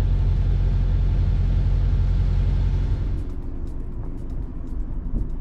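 Sailing yacht's inboard engine running, a steady low rumble while the boat manoeuvres in to berth. About three seconds in it drops to a quieter hum with a few light ticks.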